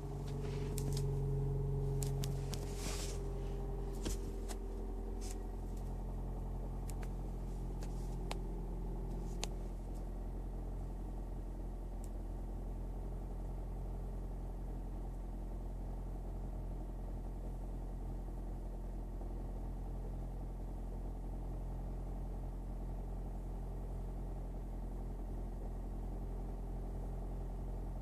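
Toyota Prius petrol engine running just after starting, a steady hum that is louder for the first couple of seconds, with a held whining tone for about five seconds and a few light clicks early on before it settles. The owner takes this as an abnormal engine noise that only shows up on some starts.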